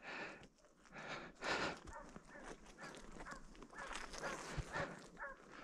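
Russian hound giving voice faintly in the distance: a run of short, high yelps, about two or three a second, starting around the middle. This is the baying of a hound in full chase on a hare's trail. Soft rustling comes in the first two seconds.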